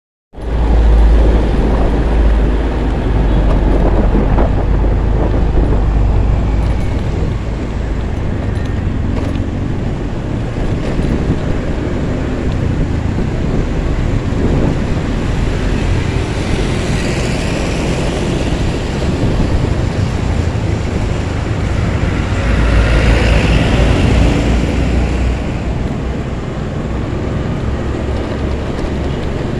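Honda Beat scooter riding through city traffic: wind buffeting the handlebar-mounted microphone over the scooter's engine and road noise. The wind rumble is heaviest for the first several seconds and again about three quarters of the way through.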